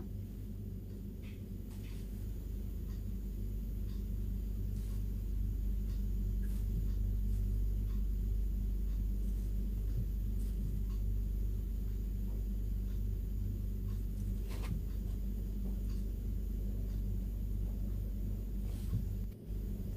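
Steady low hum of room noise, with a few faint light taps scattered through it as a paintbrush dabs on a plastic paint palette and a glass bottle.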